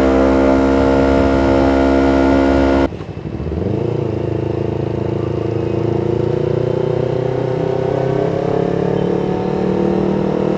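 Yamaha MT-25's parallel-twin engine through an aftermarket full-titanium R9 H2 exhaust, holding steady revs. About three seconds in the sound drops away suddenly, then comes back lower, its pitch climbing slowly as the bike pulls away again.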